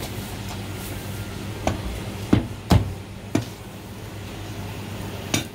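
Cleaver chopping marinated goose on a cutting board: about five sharp chops, mostly in the middle with a pause before the last, over a steady low hum.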